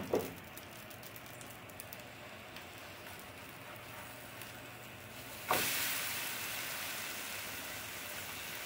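Faint cooking hiss, then, a bit over halfway through, a sudden loud sizzle as the flipped uthappam lands topping-side down on the hot oiled nonstick pan, slowly dying down.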